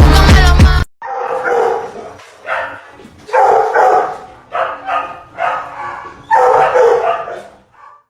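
A dog barking and vocalising in a run of about seven loud calls, some short and some drawn out, after a burst of music that cuts off suddenly within the first second.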